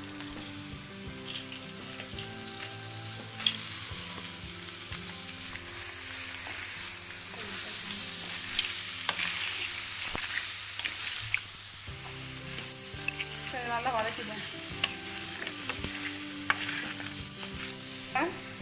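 Crab pieces frying in a sautéed onion-tomato and ginger-garlic masala in a clay pot, sizzling while a spoon stirs them with a few clicks; the sizzle turns much louder about five seconds in.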